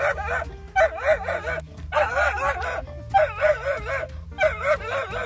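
A dog barking in a string of drawn-out, wavering barks, about four of them, each roughly a second long. Background music with a bass line runs underneath.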